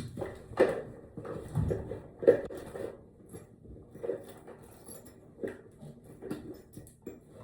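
Irregular rustling and handling noises with a few soft knocks, as cloth and small objects are moved about close to the microphone.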